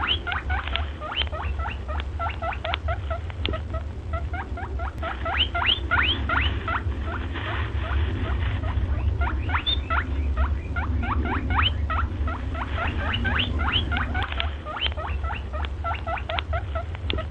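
Many small animals squeaking or chirping: short, high calls in quick succession, overlapping, over a steady low hum.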